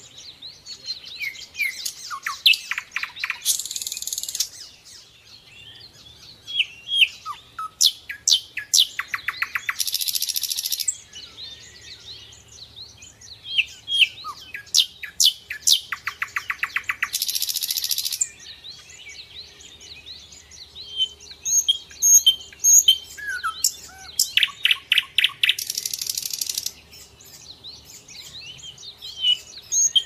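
Nightingale singing in separate phrases of a few seconds each, with short pauses between them. The phrases mix whistled notes, fast trills of repeated notes and harsh buzzy rattles.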